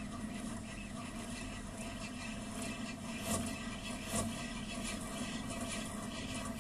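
Steady low hum from the nest box, with a couple of soft scrapes on gravel about three and four seconds in as an adult falcon gets up off its chick and shifts its feet.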